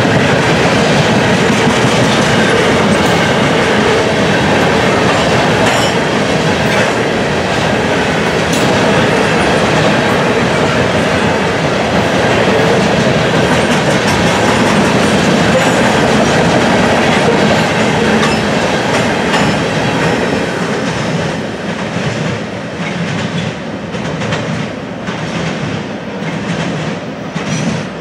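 Freight train of covered hopper cars rolling past close by: a steady rumble of steel wheels on rail with a clickety-clack over the rail joints. About twenty seconds in it starts to fade, with separate wheel clacks standing out as the last cars go by and the train pulls away.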